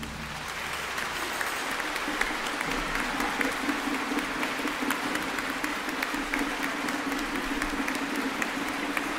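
Concert-hall audience applauding steadily after the music ends, a dense patter of many hands clapping, with a steady low tone underneath.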